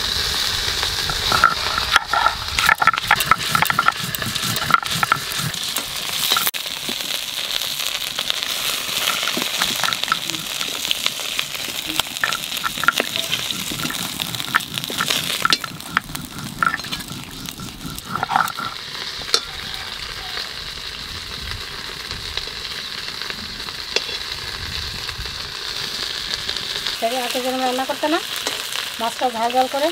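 Pieces of stingray, coated in salt and turmeric, frying in oil in a wok: a steady sizzle with stirring. A run of sharp knocks and scrapes comes in the first several seconds.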